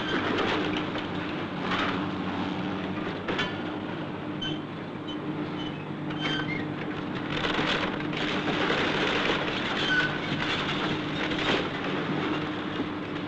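Åkerman 610 excavator's engine running steadily while its bucket tears into a wooden house, with timber cracking and rubble crunching and crashing down, in flurries every few seconds.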